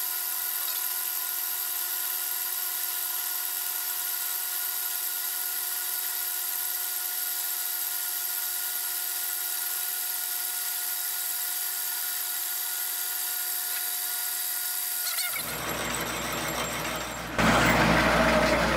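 Milling machine running a homemade face mill across a cast-iron plate, taking a facing cut to bring it down to thickness: a steady whine of several fixed tones over a high hiss. About fifteen seconds in the sound turns abruptly fuller and rougher, and it grows louder again shortly before the end.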